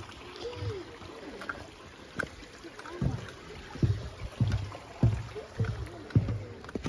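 Footsteps on a small footbridge on a forest trail, steady thumps about two a second that start about three seconds in.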